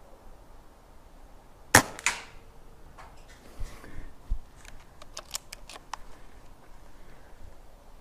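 A Gamo Phox PCP air rifle firing one shot: a sharp, loud crack, with a second crack about a third of a second after it. A few dull thuds and a run of small mechanical clicks follow a couple of seconds later.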